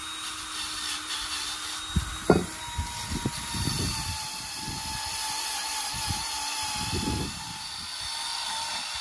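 Cordless drill running against a used cast-iron Cummins ISX exhaust manifold to scrub its sealing face clean, a steady motor whine under rough scraping. A few sharp knocks come where the tool bites the iron, most around two to four seconds in and again near seven seconds.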